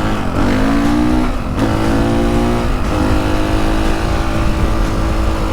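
Motorcycle engine accelerating through the gears: the pitch climbs, drops sharply at each of two shifts about a second and a half and three seconds in, then holds steady.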